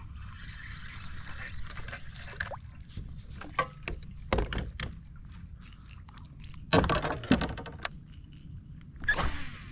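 Water sloshing around a plastic sit-on-top fishing kayak, with scattered clicks and a few louder knocks of gear and paddle against the hull over a steady low rumble.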